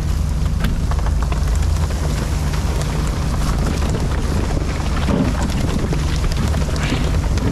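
Fishing boat's engine running steadily, under a hiss of spraying water and wind, with scattered splashes and knocks.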